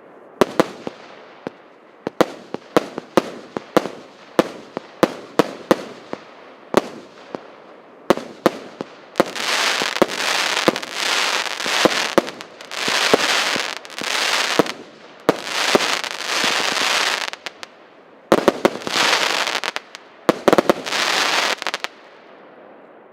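100-shot firework cake firing: sharp bangs of shells bursting, two or three a second, then from about nine seconds in a run of longer noisy bursts of about a second each, one after another, dying away near the end.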